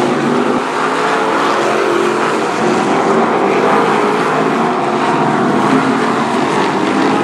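Several BriSCA F1 stock cars' V8 engines running hard together as the pack races past, a loud, steady, overlapping engine din.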